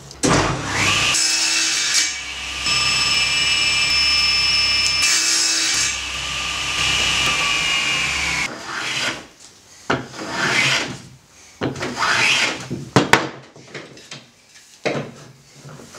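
Table saw running and cutting oak on a crosscut sled, its motor whine sagging in pitch as it spins down after about eight seconds. Then come irregular rubbing and scraping strokes of hand work on oak held in a bench vise.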